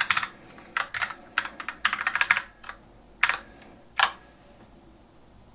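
Typing on a computer keyboard: a quick run of keystrokes over the first couple of seconds, then two single key presses about a second apart.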